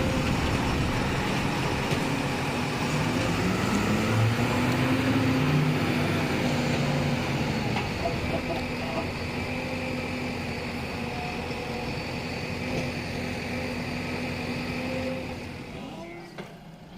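Heavy diesel engine running, revving up about three seconds in and holding a higher speed, then dropping away near the end.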